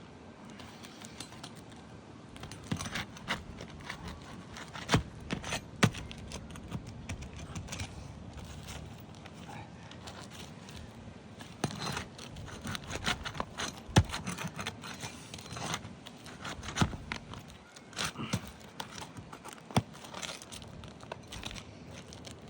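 Asphalt architectural shingles being pried up and pulled from a roof: irregular scraping, crinkling and tearing, with scattered sharp knocks. The shingles tear up as they are lifted, a sign that they are brittle.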